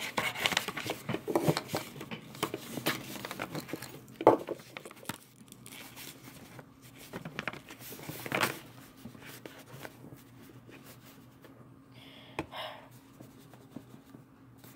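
Paper rustling and crinkling as things are handled, with scattered light taps and knocks. It is busiest in the first half and thins out after about nine seconds.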